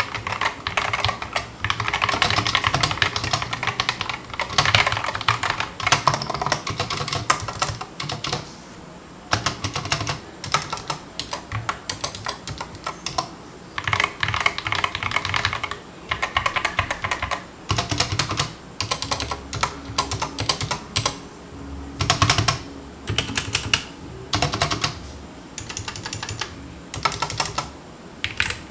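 Typing sound test on mechanical keyboards with Gateron Red linear switches, the Epomaker SK61 with its Gateron Red optical switches and a GK61: rapid keystroke clatter in bursts of a few seconds, with short pauses between them.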